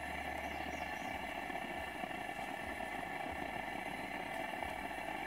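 Breaded lake trout fillets frying in hot oil in a pan on a propane camp stove: a steady sizzle.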